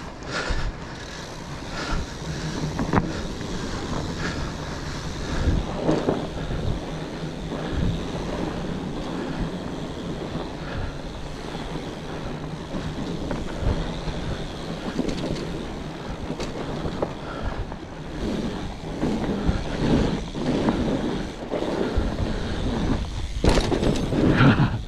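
Fat bike riding: wide tyres rolling over the trail with wind on the microphone, and scattered knocks and rattles over bumps that grow louder and more frequent near the end.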